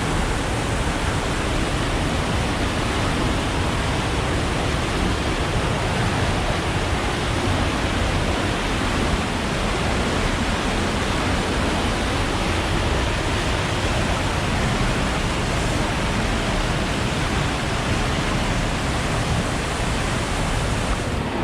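Waterfall pouring into a creek, heard close up as a loud, steady rush of falling water.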